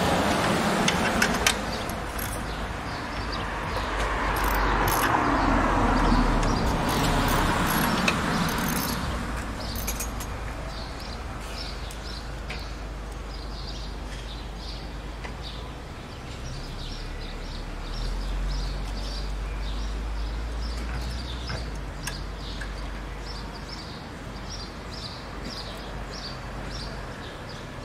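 A passing vehicle rises and fades over the first ten seconds, then birds chirp in quick runs over a steady low rumble.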